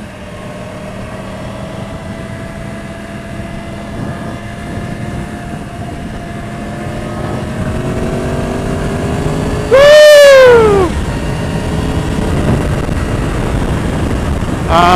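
Yamaha R1 inline-four engine and wind noise at highway speed, the engine note rising slowly as the bike gathers speed. About ten seconds in, a loud, short call rises and then falls in pitch over the riding noise.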